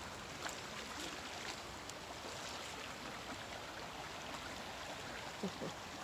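Shallow creek running fast over rocks: a steady rushing of water, the flow raised by recent rain. A few faint clicks sound over it.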